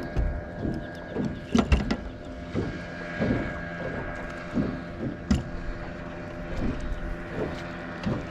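Sounds of a small fishing boat on the water: a steady electric hum with irregular knocks and water slaps against the hull, the loudest knocks about one and a half seconds and five seconds in.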